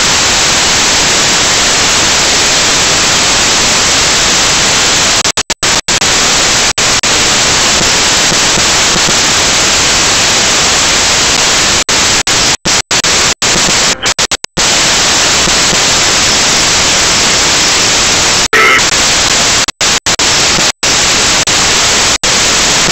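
Loud, steady electronic hiss from a cheap mini camera's own audio recording, cut by brief dropouts to silence several times, with one short louder crackle near the end.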